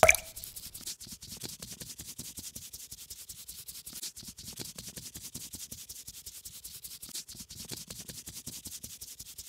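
Fast, continuous scratchy rubbing strokes of a paintbrush colouring on paper. A short, louder blip sounds right at the start.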